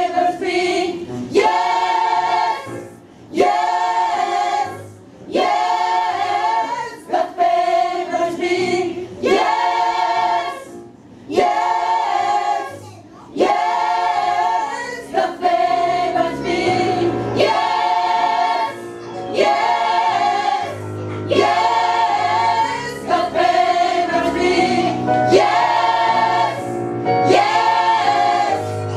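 A gospel choir singing a song live in short repeated phrases about every two seconds. A low bass accompaniment joins about halfway through.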